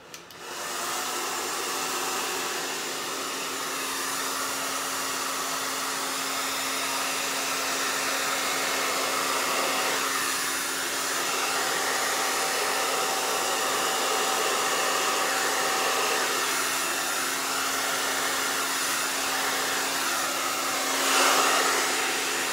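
Handheld hair dryer switching on and running steadily, a rush of air over a low steady hum. It gets louder for a moment near the end as it is brought close.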